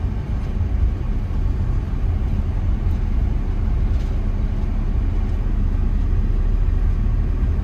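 Steady low rumble of a vehicle being driven, engine and road noise heard from inside the cabin.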